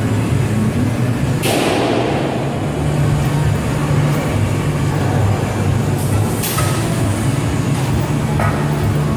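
Steady low hum of heavy shop machinery, with a brief rushing noise about a second and a half in and a few fainter ones later.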